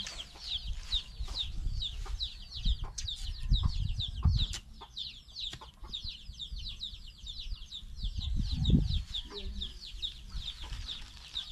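Chicks peeping steadily, short high falling calls about three or four a second, with a few low thuds from digging in soil around the middle and near the end.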